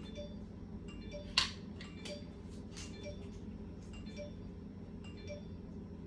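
An iPad making a run of short, light clicking pings, a few a second and irregularly spaced, with one sharper click about a second and a half in, over a low steady hum. The noises keep going on their own without stopping.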